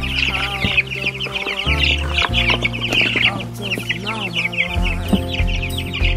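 A brooder full of young chicks peeping nonstop, a dense chorus of short, high, rapid cheeps, over background music.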